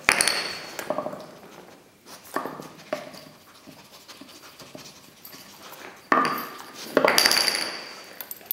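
Wooden pegs of a dog puzzle board knocking and clattering, several sudden knocks with a short ring, as a dog noses them out and they drop onto a hardwood floor; between the knocks the dog, a Hovawart, sniffs and pants.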